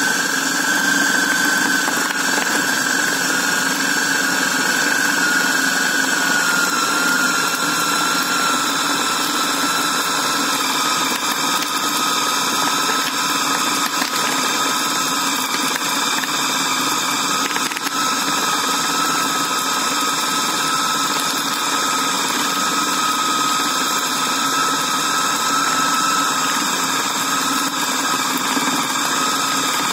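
Electric food chopper's motor running continuously, grinding a chicken meat mixture into paste. It makes a steady whine that sinks slightly in pitch during the first ten seconds or so, then holds.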